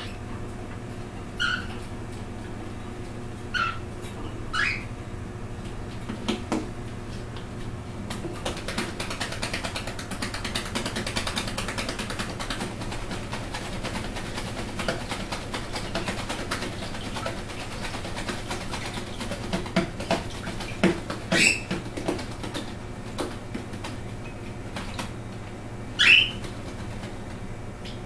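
Baby cockatiels bathing in a shallow dish of water: wings flapping and splashing water in a dense crackle through the middle, with a few short rising chirps, the loudest one near the end.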